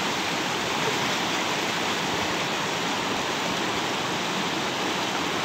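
Fast mountain river rushing over rocks, a steady roar of whitewater.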